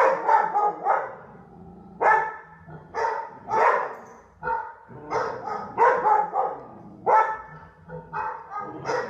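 A dog barking repeatedly, in short barks coming in irregular runs.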